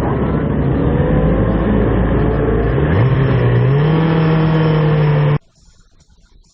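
Car engine and road noise heard through a dashcam microphone. About three seconds in, the engine pitch rises as the car accelerates, then holds steady. The sound cuts off suddenly near the end.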